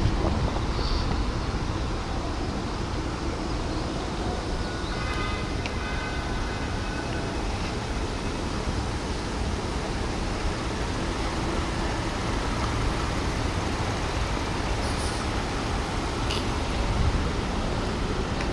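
Steady outdoor background noise: a low rumble of distant city traffic mixed with wind on the microphone.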